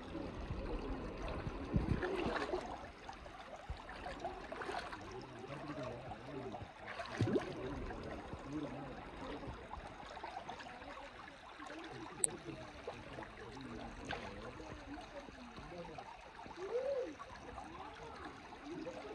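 Canal water flowing steadily, with a couple of short knocks or splashes about 2 and 7 seconds in.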